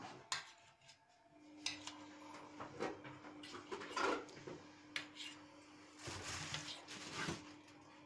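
A metal spoon clinking and scraping against metal serving plates of broth-soaked bread, in scattered knocks, as the excess broth is drained off the bread. A faint steady hum runs underneath from about a second in.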